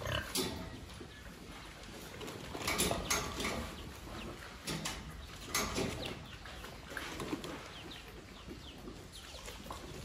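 A domestic pig feeding with its snout at a concrete floor: irregular snuffling and chomping noises, louder around three seconds and six seconds in, with chickens clucking faintly alongside.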